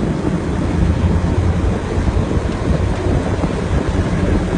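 Steady wind buffeting the microphone aboard a moving amphibious duck boat, over the low noise of the vehicle running.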